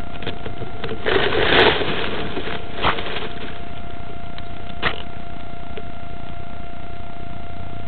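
Grass rustling and scraping against a small onboard camera: a longer rustle a little over a second in and short brushes near three and five seconds, over a steady electrical hum and hiss.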